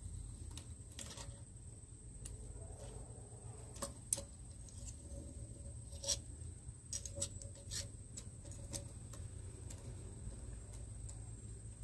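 Irregular metallic clicks and clinks as a hand-crank bar-mounted chain sharpener is adjusted and the pole saw chain is shifted in it, the sharpest click just after four seconds in. A low steady rumble runs underneath.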